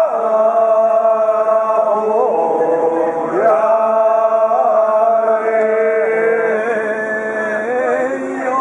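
Chanting in long, held sung notes, with wavering turns in pitch between them.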